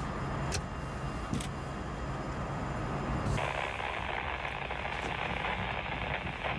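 Diesel-electric freight locomotives idling with a low, steady engine drone, with two sharp clicks in the first second and a half. About halfway through, a loud steady hiss sets in over the drone.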